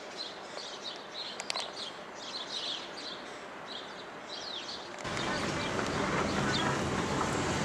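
Small birds chirping over and over in short high calls. About five seconds in, this cuts to the steady low rumble of a car driving, heard from inside the cabin.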